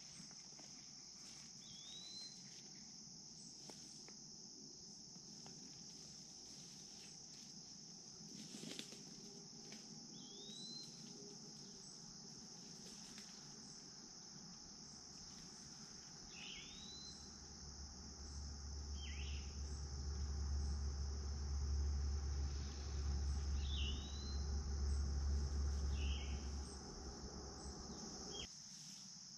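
Steady high-pitched insect chorus, with short hooked chirps every few seconds. A low rumble comes in a little past halfway and fades near the end.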